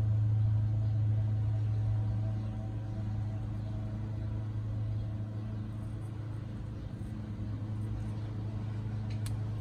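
A steady low mechanical hum, like a running motor or engine, with one short click near the end.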